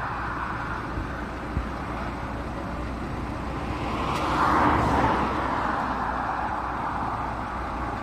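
Roadside traffic noise by a highway: a steady low rumble, with a vehicle passing by about halfway through, its sound rising and then fading.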